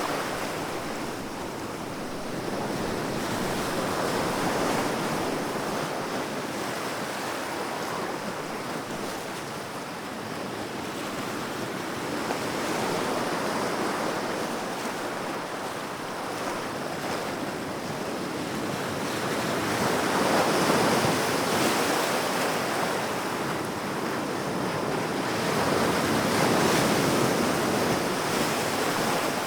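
Sea waves washing ashore, a steady surf rush that swells and eases every six to eight seconds as each wave breaks and draws back.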